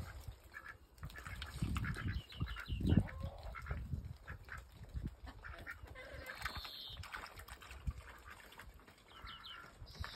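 Indian Runner ducks quacking and chattering in a series of short calls, with a low rumble in the first few seconds.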